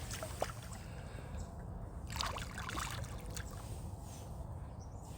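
Quiet water lapping and trickling at the side of a small fishing boat, with a few brief splashes about two seconds in as a hooked pike moves in the water alongside.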